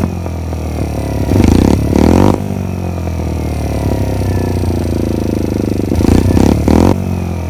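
Small motorcycle engine running under way, its note falling gently as it eases off, with two short louder spells of throttle, one near two seconds in and one near the end.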